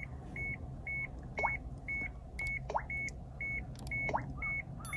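Electronic beeping inside a car, short high beeps about two a second, with faint rising chirps every second or so.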